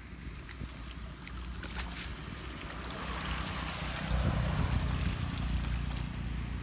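Water splashing and streaming off a wet cast net as it is hauled up out of a canal, loudest about halfway through, over a steady rumble of wind on the microphone.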